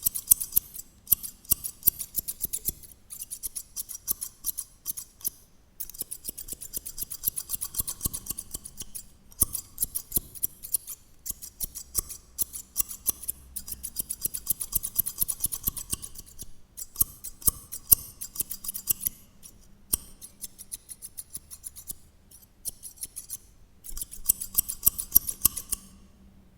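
A pair of 7-inch scissors snipping rapidly, in runs of quick metallic clicks lasting a few seconds each with short pauses between, and a few single louder snips.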